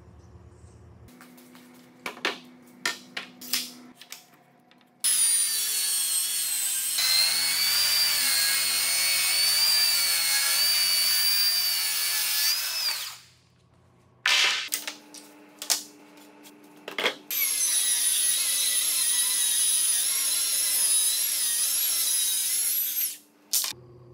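Circular track saw running along a guide rail, ripping a Korean mahogany (chamjuk) slab: two cuts of several seconds each, each with a steady high whine that stops abruptly. A few sharp clicks and knocks come before each cut.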